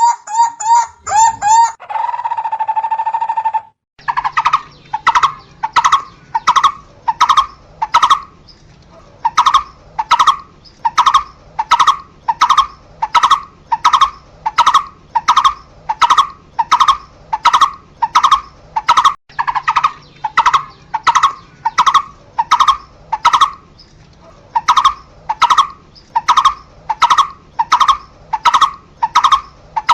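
Barbet calling a long run of evenly repeated single notes, about two a second, with a couple of short breaks. In the first few seconds a different stretch of calls and a steady tone come before it.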